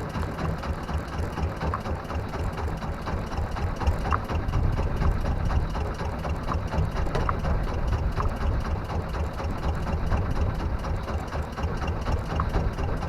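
Small fishing boat's engine running steadily, a fast, even low chugging.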